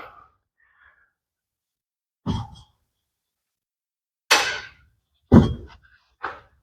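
Four short, separate scuffs and knocks about a second or two apart, from hand work on the transfer case rear output after the old seal has been knocked out. The two in the middle are the loudest.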